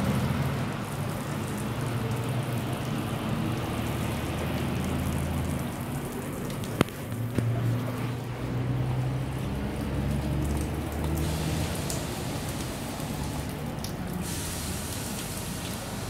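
Water from the fan jets on a water-fed pole brush spraying and running down shop window glass, a steady rain-like patter, with a low hum underneath. A single sharp knock about seven seconds in.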